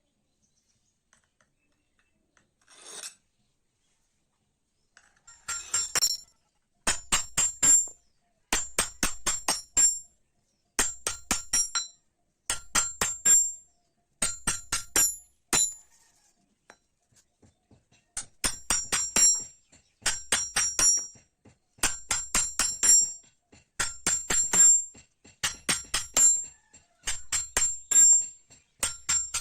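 Hammer blows on metal over an anvil, coming in quick runs of several strikes about a second long with short pauses between, each blow ringing. They begin about five seconds in, after a near-silent stretch.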